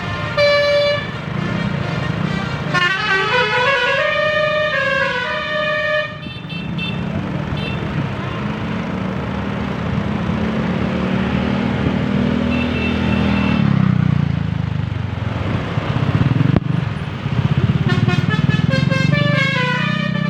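Basuri 'telolet' musical horn, a multi-note vehicle horn, playing a run of stepped notes up and down. The horn gives way to a vehicle's engine and road noise, and the horn's melody starts again near the end.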